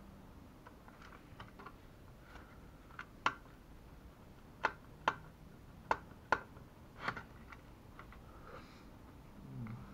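Sharp, separate clicks and taps of hard plastic parts being handled, about eight loud ones in the middle few seconds and fainter ones around them: the white plastic shell and arms of a Hubsan H501S quadcopter being fitted together.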